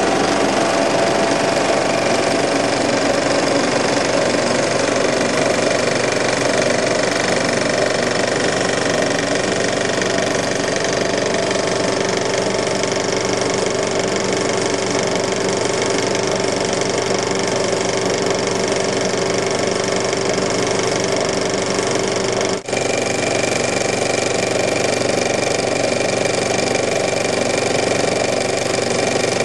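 35mm film projector running: a steady mechanical clatter and hum from the mechanism, broken by a split-second dropout about three-quarters of the way through.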